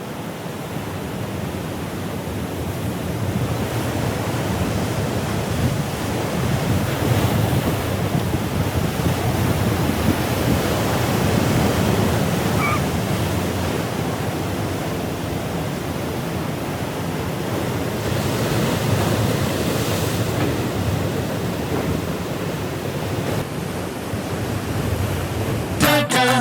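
Ocean surf breaking and washing up the beach in a continuous rush that swells and ebbs, with wind buffeting the microphone.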